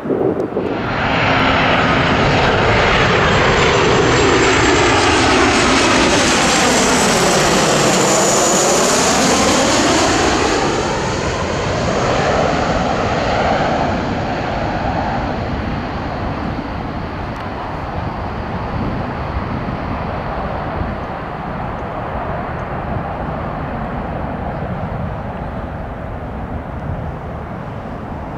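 Twin-engine jet airliner passing low overhead on final approach: engine noise swells in just after the start, with a whooshing sweep that falls and rises as it goes over about eight seconds in. It then fades into a lower, steady distant rumble as the jet lands.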